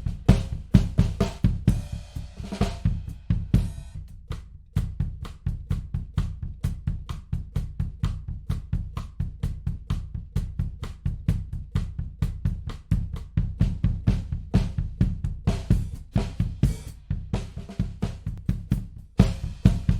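Recorded drum-kit groove playing, with bass drum, snare and cymbals in quick steady hits, run through a tape-emulation plugin. There is a short break about four seconds in before the beat picks up again.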